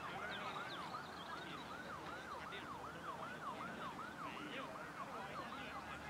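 Faint emergency-vehicle siren in fast yelp mode, sweeping up and down about three times a second without a break, with a few faint bird chirps above it.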